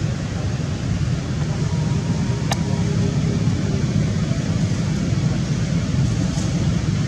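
Steady low rumbling background noise, with one sharp click about two and a half seconds in.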